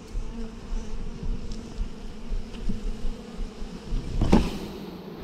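A package of Saskatraz honeybees humming steadily as the plastic package cage is tipped over the open hive to pour the bees in. A single loud knock about four seconds in comes from the cage being jarred to drop the bees.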